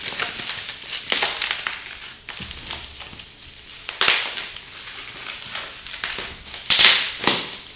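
Clear plastic wrapping crinkling and rustling as a plastic housing is pulled out of it by hand, in several bursts, the loudest near the end.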